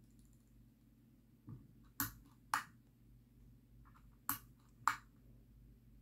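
Ceiling fan pull-chain switch clicking four times, in two pairs about two seconds apart, as the chain is pulled and let go to step the fan to its next speed. A low steady hum from the fan motor runs underneath.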